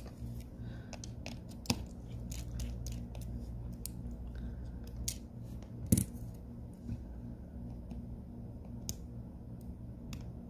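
Small clicks and taps of tools and tiny parts being handled while a Huawei smartphone is taken apart, with two louder clicks, near two seconds and six seconds in. A steady low hum runs underneath.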